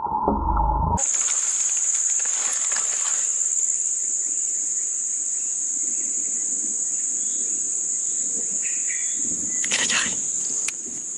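Steady high-pitched drone of forest insects, with faint rustles of movement through undergrowth now and then. It follows a steady mid-pitched tone that cuts off abruptly about a second in.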